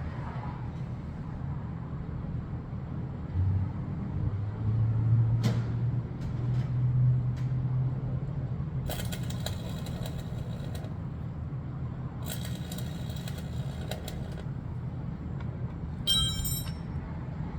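Steady low mechanical rumble, with a low hum that swells for a few seconds early on, then several short stretches of rattling and clinking.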